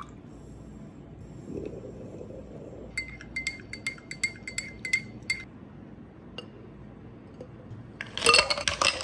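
A metal spoon stirring coffee in a glass tumbler, clinking against the glass about three or four times a second for a couple of seconds. Near the end comes a short, louder clatter of clinks against glass.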